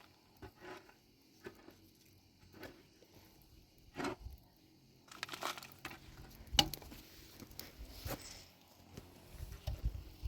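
Scattered rustling and light knocks, like things being handled. The sharpest knock comes about six and a half seconds in.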